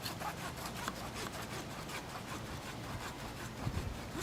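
Small handsaw cutting through a PVC water main pipe by hand, with steady rhythmic back-and-forth strokes and a few heavier knocks near the end as the cut goes through.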